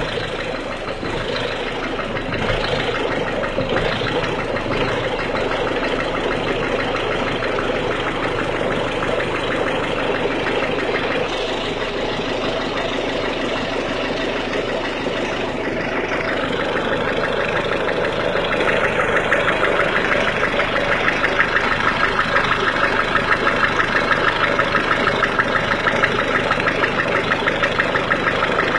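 1.6 HDi four-cylinder turbodiesel engine idling with a fast, even clattering knock, the engine noise the video presents as a fault heard when the engine is cold. The clatter grows louder and sharper about two-thirds of the way through.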